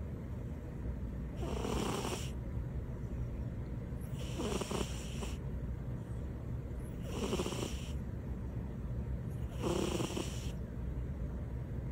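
Domestic cat snoring, four slow, even snores about three seconds apart, each lasting about a second.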